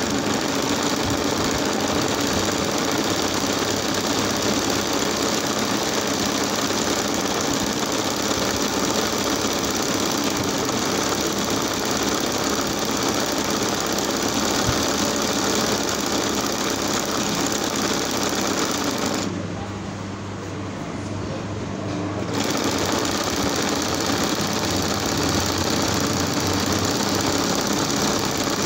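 Sewing machine running steadily as it stitches a hand-guided, free-motion embroidery border on hooped fabric. The machine goes quieter for about three seconds roughly two-thirds of the way through, then picks up again.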